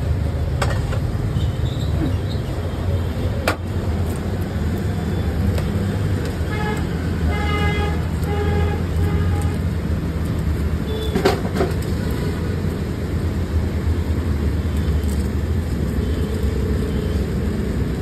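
Busy road traffic running steadily, with vehicle horns tooting several short times about halfway through. A few sharp knocks stand out, the loudest a little after the middle.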